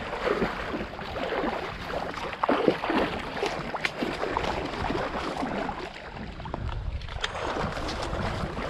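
Water sloshing and splashing from a retriever dog swimming through shallow flood water in standing corn, in short irregular splashes.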